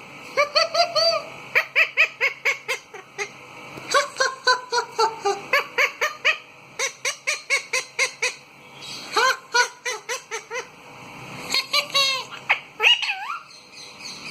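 Parrot calling in rapid runs of short, high squawks, several a second, some sliding in pitch, with brief pauses between the runs.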